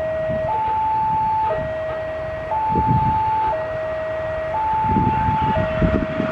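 Railway level crossing warning alarm: an electronic two-tone signal, a lower and a higher tone taking turns every second, which sounds while a train is approaching. A low rumble comes and goes underneath.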